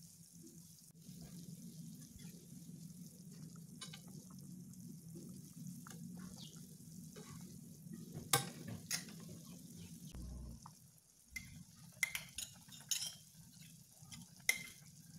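Chicken broth boiling hard in a metal pan, bubbling steadily and faintly, with a few sharp clicks and ticks in the second half.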